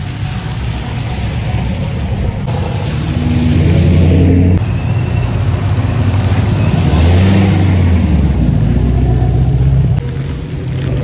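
Sports cars rolling slowly past on wet pavement: the low exhaust rumble of V8 engines (a Pontiac Trans Am, then a C5 Corvette) swells as each car passes, over the hiss of tyres on wet asphalt.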